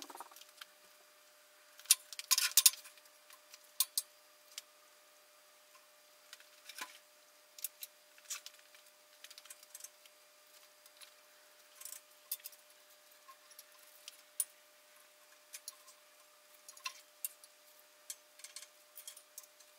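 Scattered light metal clicks and clinks from the engine hoist's chain and hand tools as the cylinder head is set onto the 5.9 Cummins engine, with a cluster of them about two seconds in. A faint steady hum sits underneath.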